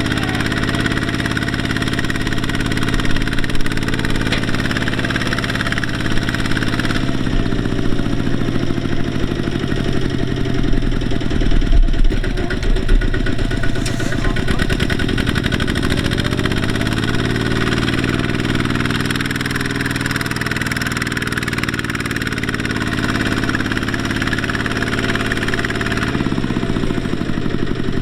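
Kubota ZT120 single-cylinder diesel engine running steadily. Its speed shifts lower about seven seconds in, climbs again a little after halfway, and changes once more near the end.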